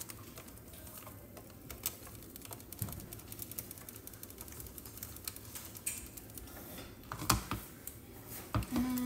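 Dry pancake mix being shaken from the plastic liner bag of its cardboard box into a plastic bowl: a run of small crinkling ticks and taps from the bag and box, with a couple of louder knocks near the end.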